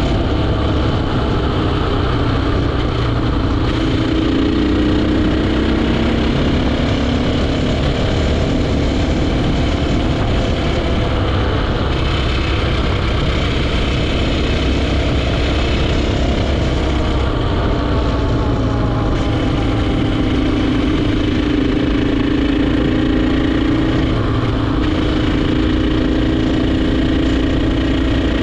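KTM EXC 450's single-cylinder four-stroke engine running as the bike rides along, its pitch slowly rising and falling with the throttle through the bends, over a steady rush of noise.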